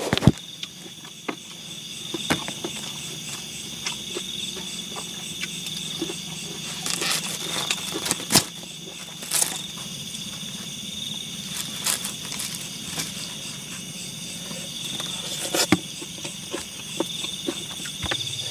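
Insects chirring in one steady high tone, with scattered small clicks and crackles as people eat, over a faint low hum.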